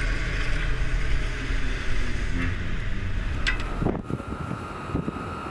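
Wind buffeting the microphone over the low rumble of a ship underway and rushing sea. About four seconds in the low rumble drops away, leaving lighter wind gusts and a faint steady whine.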